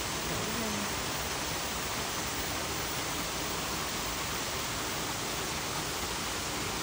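Steady rushing of a stream's flowing water, an even hiss that does not change.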